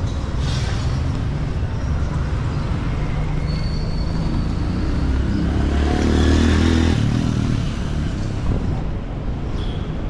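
City street traffic noise: a steady low rumble of motor vehicles, with one vehicle's engine swelling louder about five seconds in and dropping away sharply about two seconds later.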